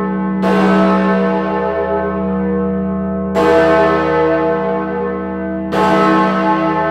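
Great George, the great bronze bell of Bristol's Wills Memorial Building, swung and tolling slowly as a mourning knell. It strikes three times, each stroke ringing on with a long hum that carries into the next.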